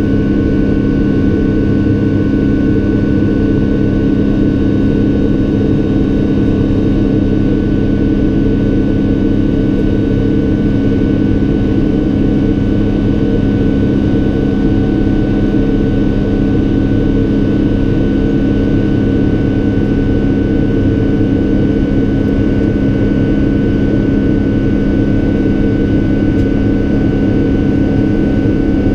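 Boeing 777-200LR's GE90 turbofan engines running steadily in flight, heard inside the cabin as an even, unbroken drone with a steady high whine over it.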